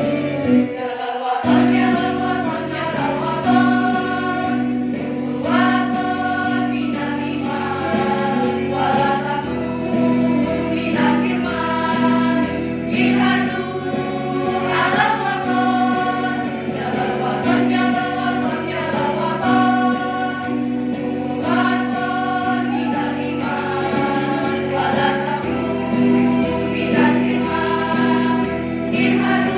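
Girls' choir singing in unison and parts, with music accompaniment underneath.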